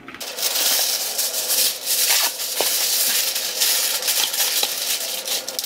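Sheet of Reynolds Wrap aluminum foil crinkling and rustling as it is pulled from the roll and pressed over a metal baking sheet.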